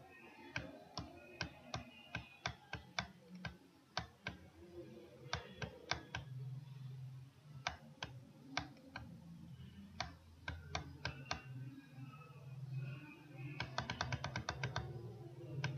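Faint, irregular sharp clicks of computer input, mouse buttons and keys, with a quick run of about a dozen clicks near the end, over a low steady hum.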